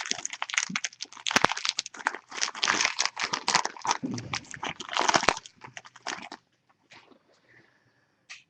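Foil trading-card pack wrapper crinkling and crackling as the pack is opened and handled. It stops about six seconds in, leaving only a couple of faint clicks.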